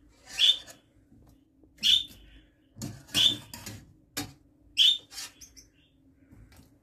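Water splashing and dripping as a wire skimmer lifts unripe figs out of a pot of hot water and tips them into a bowl of cold water: about six short splashes, roughly one a second.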